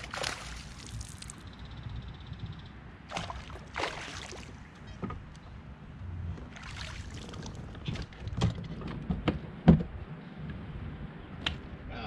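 A hooked bass splashing and thrashing at the water's surface beside a kayak, in several short bursts of splashing. Later come a series of sharp knocks, the loudest a thump just before the end.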